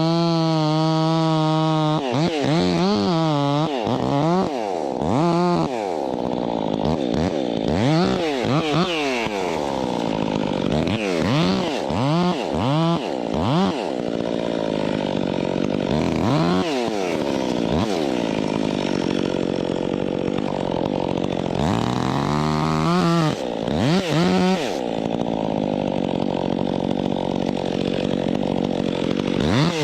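Two-stroke chainsaw idling at first, then revved again and again, its pitch sweeping up and down, with long stretches of steady high-speed running as it cuts a log.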